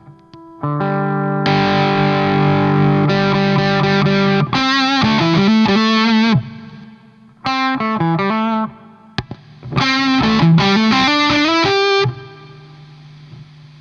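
Electric guitar played through a distortion/overdrive pedal: strummed chords held for a few seconds, then short single-note lead phrases with string bends and vibrato, ending on a held note that fades.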